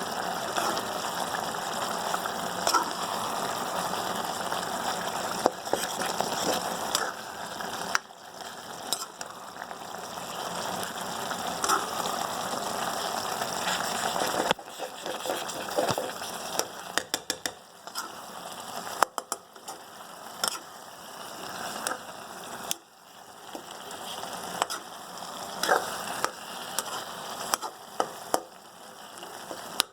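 Food frying and sizzling in a pan: a dense, steady crackle with scattered pops. Sharp clicks become more frequent in the second half. The sound changes abruptly about 8 and 14 seconds in, as one frying clip gives way to another.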